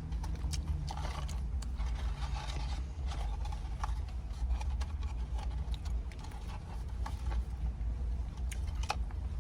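Close-up eating sounds: chewing with wet mouth clicks and smacks, over a steady low hum.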